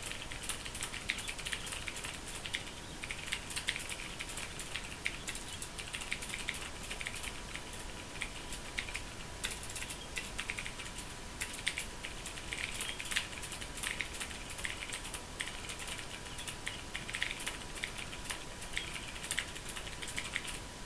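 Fast continuous typing on a Ducky Mecha mechanical keyboard, a quick stream of key clicks with brief lulls between bursts.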